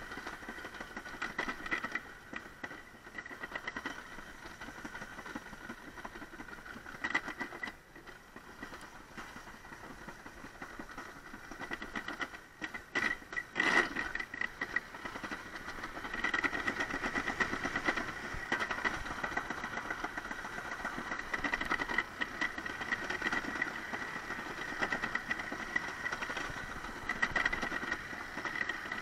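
A toboggan sled rolling down a stainless steel summer toboggan trough: a steady rumbling rattle with a high whine. There is a sharp knock about 14 seconds in, and the sound grows louder from about 16 seconds.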